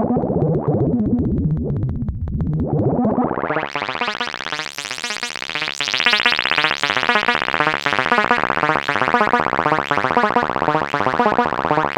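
Analog synthesizer run through the SetonixSynth Marsupial Eurorack voltage-controlled filter, with no effects. The filter closes down to a dull, muffled tone about two seconds in, then sweeps open again until the sound is bright and buzzy.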